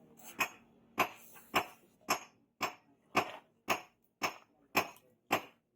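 Hand hammer striking the steel of a rebar crowbar on an anvil in an even rhythm, about two sharp blows a second.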